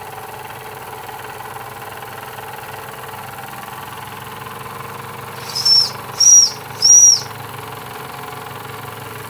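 A pair of Jensen #35 electrically heated toy steam engines running steadily under steam. Midway through come three short, high-pitched whistle toots in quick succession.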